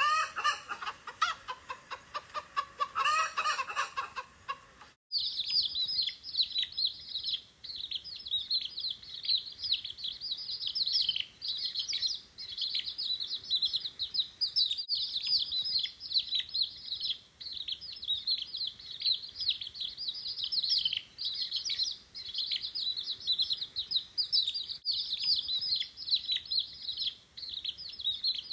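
A hen clucking for about the first five seconds, then, after an abrupt cut, a brood of baby poultry peeping nonstop, many high, short chirps overlapping.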